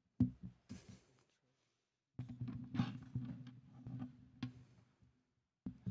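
Knocks, clicks and rustling from equipment being handled near a microphone, with a low hum through the middle stretch and a few sharper knocks.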